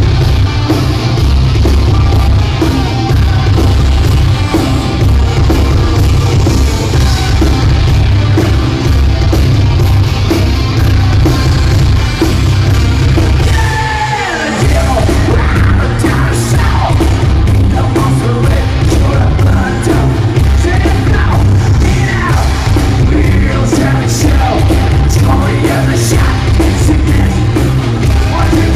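Industrial metal band playing live through a loud concert PA, with heavy bass, drums and shouted vocals. The bass cuts out for a moment about halfway through, with a falling slide, then the full band comes back in.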